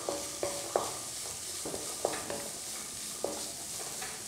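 Wooden spatula stirring green peas, onions and curry leaves as they sizzle in oil in a frying pan, knocking against the pan about six times with a short ring after each knock.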